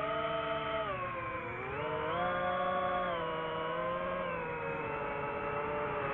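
DJI FPV drone's motors and propellers whining. The pitch dips and climbs again several times as the throttle changes, dropping about one and a half seconds in and again around four seconds in, then rising near the end.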